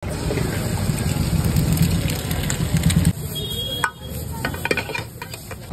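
Eggs sizzling in hot oil in a flat iron pan over a gas burner, over a steady low rumble. About three seconds in the sound drops sharply, and a few sharp clicks follow.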